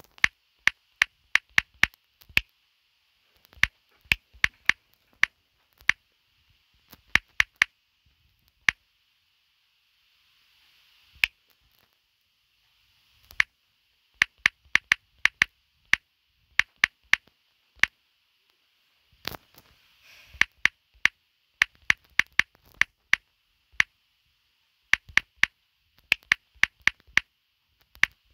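Typing on a phone's touchscreen keyboard: quick, irregular runs of short taps and clicks, with brief pauses between words.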